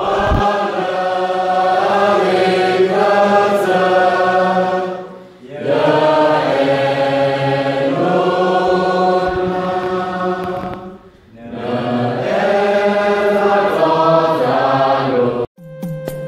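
A group of voices chanting together in three long held phrases of about five seconds each, with short breaks between. Shortly before the end it cuts to instrumental music.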